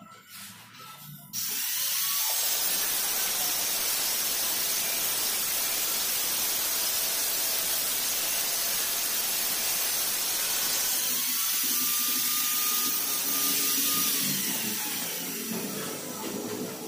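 A handheld power tool running loud and steady with a hissing, whining noise. It starts abruptly about a second in and tails off near the end.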